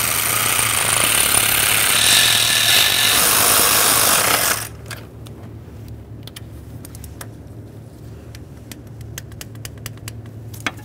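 A power tool runs for about five seconds, snugging down the fuel rail bolts, then stops. Afterwards come a series of light, irregular clicks from hand tools on the bolts.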